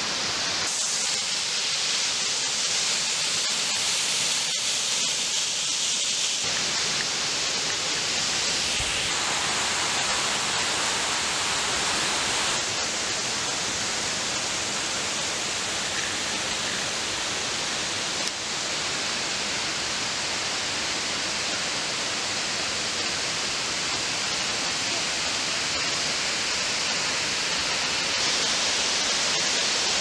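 Steady hiss of rushing water from a mountain stream or waterfall, changing in tone abruptly a couple of times.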